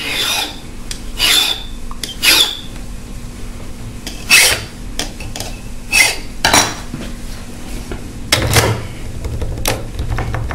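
Hand file rasping across a key blank in separate short strokes, about eight of them a second or so apart, filing down a cut where the lock pin has left a mark during impressioning. Near the end, a quick run of light metal clicks as the key goes back into the euro-profile cylinder.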